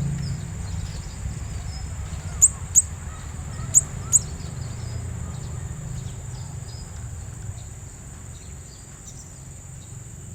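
Blue-crowned hanging parrot (serindit) giving four short, shrill chirps in two quick pairs, over a steady high-pitched insect drone and a low rumble.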